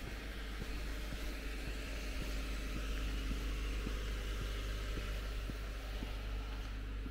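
Street traffic: a steady hum of car engines and tyres that grows slightly louder a couple of seconds in.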